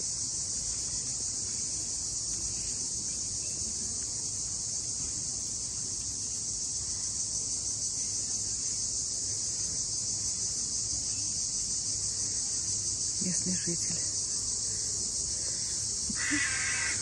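Steady, unbroken high-pitched chorus of insects droning in the summer garden.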